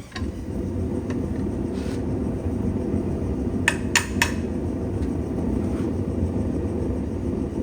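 Light metal clinks, three in quick succession about halfway through and a few fainter ones before, over a steady low rumble.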